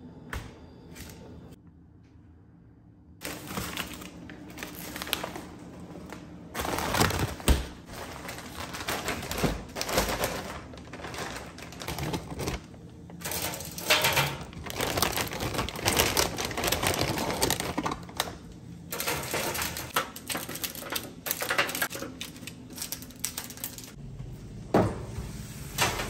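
A knife chopping rapidly on a cutting board, in runs of quick strokes with short pauses, starting about three seconds in.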